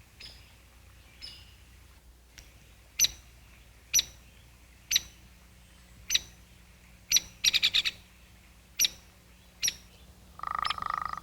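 Woodpecker's sharp, single call notes, roughly one a second, with a quick run of notes a little past halfway. A brief lower buzzing burst comes near the end.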